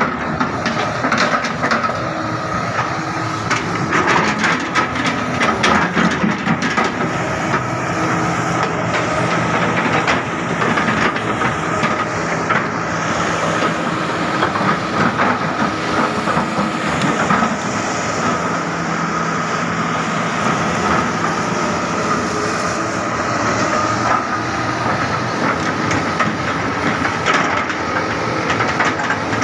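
Excavator engine and hydraulics running steadily, with a constant high whine over the engine's low hum and scattered clanks and rattles from the machine's steel parts.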